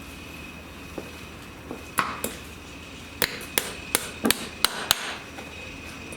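Farrier's hammer striking metal: about eight sharp, separate blows, two about two seconds in and then six in quicker succession over the next couple of seconds.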